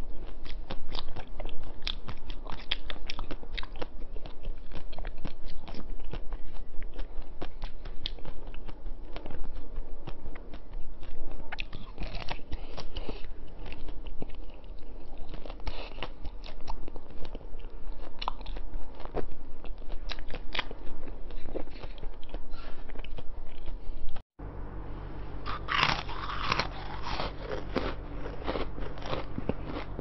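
Close-miked biting and crunching of hard frozen ice, a dense run of sharp cracks and chewing. After a short break near the end, a different crunchy chewing follows over a low steady hum.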